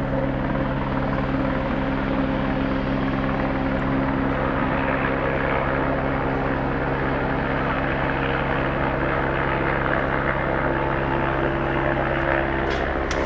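Helicopter close by, its rotor beating fast and regularly over a steady engine hum, holding an even level throughout.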